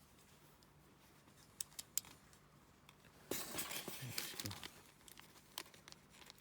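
Quiet handling noises: a few faint clicks, then a little over a second of plastic crinkling about three seconds in, and more faint clicks near the end.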